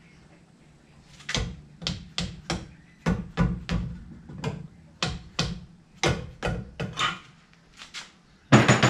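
Soft mallet knocking on the leg (lower unit) of a Honda BF30 four-stroke outboard, a run of about sixteen blows at two to three a second, to break the leg loose from the midsection. Near the end a louder, longer clunk as the leg comes free.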